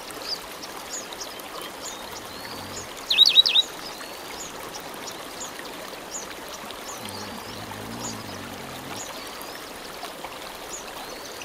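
Bush ambience: a steady hiss with frequent short, high bird chirps and a loud burst of four quick bird notes about three seconds in. A faint low hum comes and goes around eight seconds.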